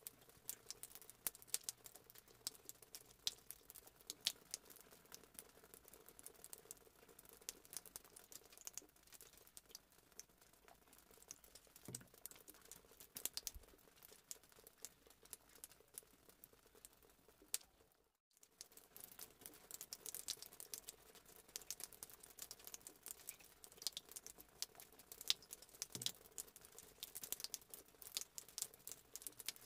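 Faint handling noise: irregular light clicks and crackles over a low steady hum, cut by a brief silent break a little past the middle.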